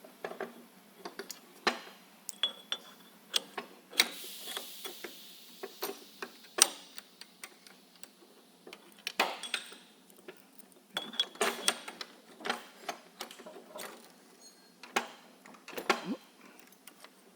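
Metal parts clinking and knocking irregularly as pieces are handled and fitted together during assembly, some strikes ringing briefly.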